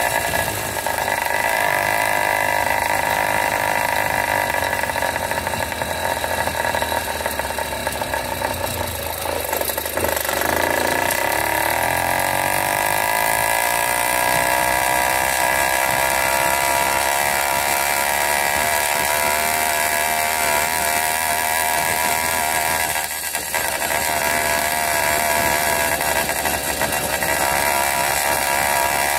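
The small single-cylinder engine of an 80cc Wildcat PK80 minibike running steadily under way. About ten seconds in, the engine note drops and then climbs again as it picks back up, and there is a brief dip in the sound at about 23 seconds.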